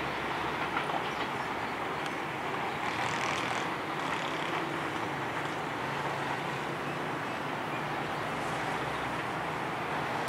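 Passenger train rolling away along the track: a steady rumble of coach wheels on the rails.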